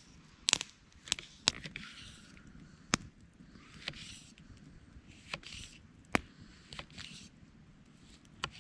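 A knife slicing button mushrooms on a split-log board: short crisp cuts through the mushroom and sharp irregular clicks as the blade reaches the wood, repeated slice after slice.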